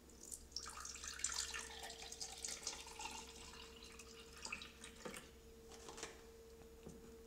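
Milk poured in a thin stream into a glass, faintly splashing as the glass fills. The pour stops about four and a half seconds in, followed by a few faint ticks.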